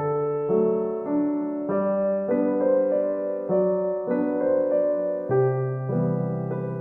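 Background piano music, gentle notes changing about twice a second.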